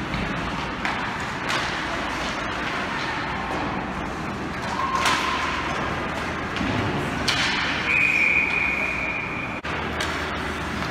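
Game noise from an ice hockey game: a steady din with a few sharp knocks and thuds, and a high steady tone lasting about two seconds past the middle.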